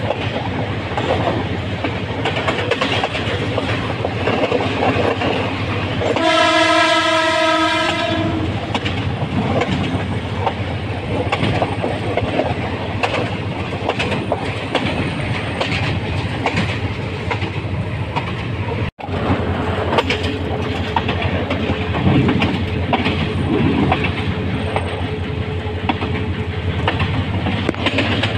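Diesel locomotive running along the track, a steady rumble with the wheels clattering over the rails. About six seconds in, the horn sounds once for about two seconds. The sound cuts out for an instant about two-thirds of the way through.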